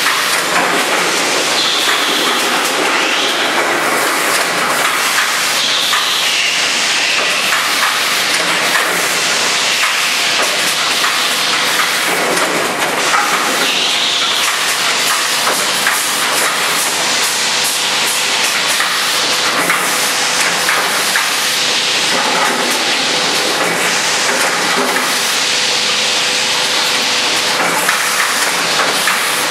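Four-lane shot glass filling machine running: a steady mechanical clatter of cup holders moving through the lanes, with short hisses now and then.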